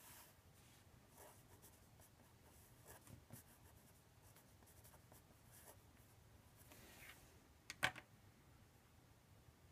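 Faint marker strokes scratching across paper in a series of short strokes. A sharp click, the loudest sound, comes near the end.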